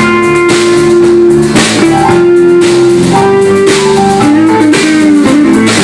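Country-rock band playing an instrumental passage without vocals: guitar holding long notes over a steady drum-kit beat.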